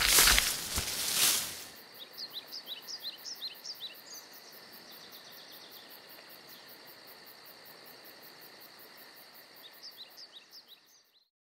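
Cartoon nature-ambience sound effect: a loud whoosh for the first second or two, then quick bird chirps over a faint steady insect-like drone, fading out just before the end.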